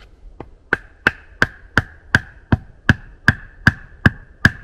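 Rapid, even hammering: about a dozen sharp knocks at nearly three a second, each with a short ringing note. The first couple of knocks are lighter.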